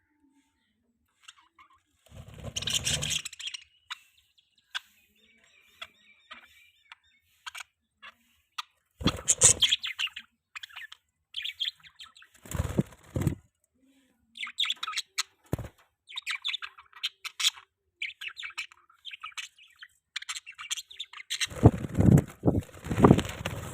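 Budgerigars chirping and warbling in quick, scattered short calls, with several louder bursts of wing flapping, the longest and loudest near the end.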